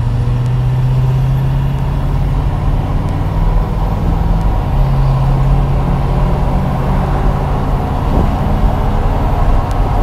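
Ford 6.7 L Power Stroke turbodiesel V8 pulling the truck along under throttle, heard inside the cab: a steady, loud low engine drone with turbo and intake noise from a Stage 2 aftermarket cold-air intake. The drone breaks off briefly about four seconds in and then resumes.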